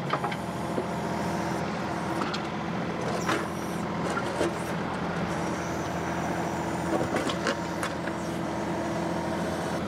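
John Deere 2038R compact tractor's three-cylinder diesel engine running steadily, with a few light knocks.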